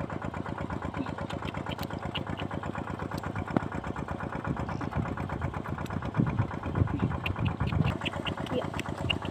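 Small engine, the water pump draining the field, running steadily with a fast, even beat.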